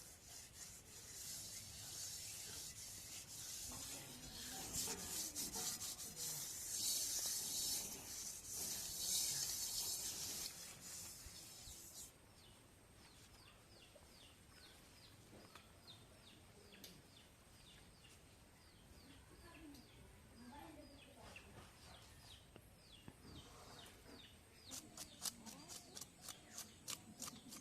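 Gritty rubbing and scraping as wet mud is smeared by hand over a kadai (wok), louder for about the first twelve seconds, then faint, with a quick run of short, even scraping strokes near the end.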